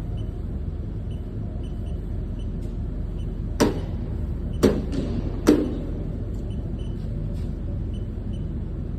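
Steady low hum of running machinery, with three sharp taps about a second apart near the middle.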